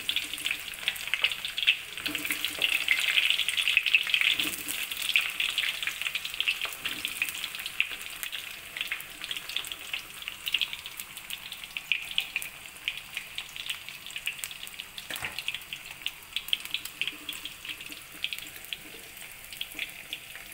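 Eggplant pieces deep-frying in hot oil in a wok: a dense sizzle with many small crackling pops, loudest in the first few seconds and gradually easing off.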